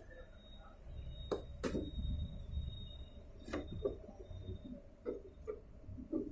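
Samsung WA82VAL top-loading washing machine in its spin cycle: a low rumble with a faint high whine, and irregular knocks and rattles as the tub vibrates. The owner puts the vibration and noise down to failed shock absorbers in the tub suspension.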